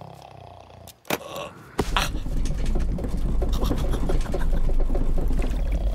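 A sharp click, then from about two seconds in a loud, steady low rumble with crackling rattle: a cartoon caravan rolling freely down a slope after being unhitched.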